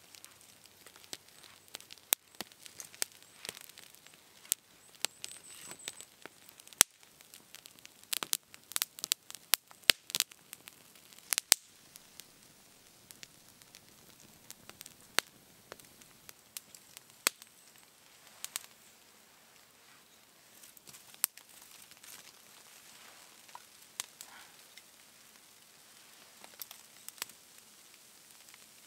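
Small fire of dry twigs crackling as it catches, with sharp irregular pops that come thickest a few seconds in and then thin out.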